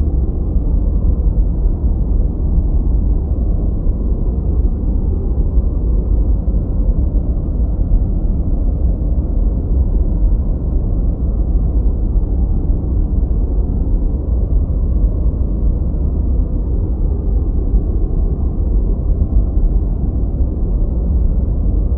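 Steady, unchanging synthetic noise track played for relaxation and focus. It is deep and rumbling, with almost no high end, closer to brown noise than true white noise.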